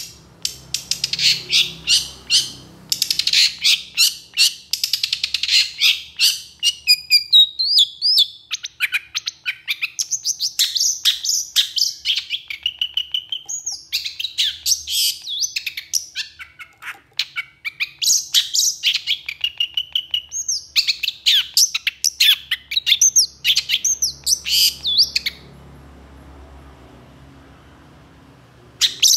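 Long-tailed shrike singing hard: a fast run of harsh, rapidly repeated chattering notes for the first several seconds, then varied phrases of sharp, falling calls and whistles. It stops about 25 seconds in and starts again at the very end.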